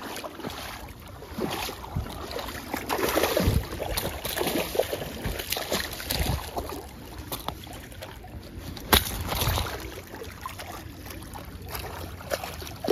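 Hooked coho salmon splashing and thrashing at the surface of shallow water as it is played in to the bank. There is a single sharp knock about nine seconds in.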